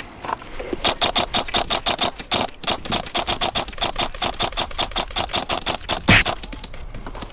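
Airsoft electric rifle, an upgraded Krytac REC7, firing a rapid string of shots, about six a second, for about five seconds. A heavier thump comes near the end of the string.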